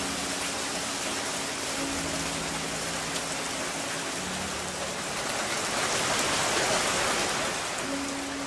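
Steady rain falling on the street and porch roof, a dense even hiss that swells slightly about six seconds in.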